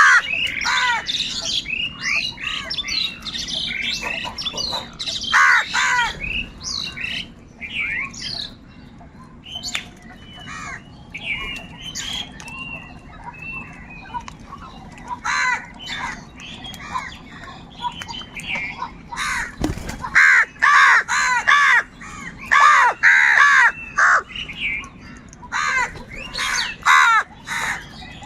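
A flock of crows cawing loudly, many harsh calls overlapping in bursts, with a thinner spell of fewer calls in the middle.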